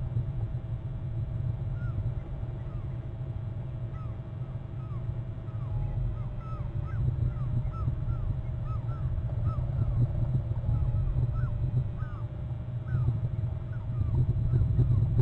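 Bald eagle trilling: a long series of short, high chirps, about two a second, starting about a second and a half in. Underneath is a steady low rumble.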